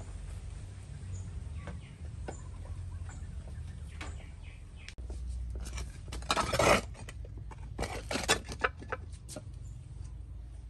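Faint chicken and bird calls over a low steady background. After about five seconds, cloth rustling and the scrape of a clay jar as a cloth-wrapped bundle is pulled off and opened: a loud rustle about six and a half seconds in, then a run of shorter rustles and knocks.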